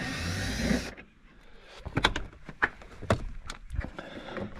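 Hand work on a car door's inner cover: a dense rustling or whirring noise for about a second, then a string of sharp clicks and taps from the tool and the plastic trim.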